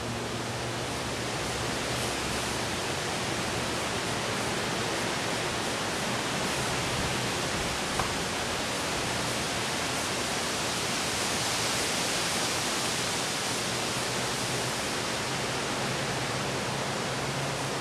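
Sparklers burning inside a running microwave oven, a steady fizzing hiss that swells around twelve seconds in, with one sharp pop about eight seconds in. The microwave's low electrical hum comes through faintly at the start and again near the end.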